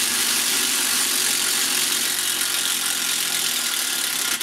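Makita TD171 18V cordless impact driver hammering steadily in reverse, backing a long screw out, then cutting out abruptly near the end as its automatic back-off setting stops the tool.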